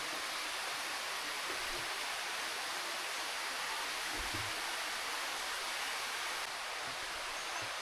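Waterfall cascading over limestone tiers: a steady, even hiss of falling water.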